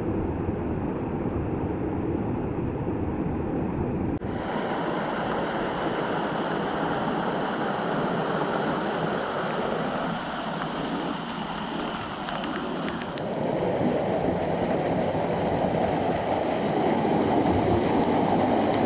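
Rushing creek water and waterfalls, a steady noise whose character changes abruptly about four seconds in and again around thirteen seconds in.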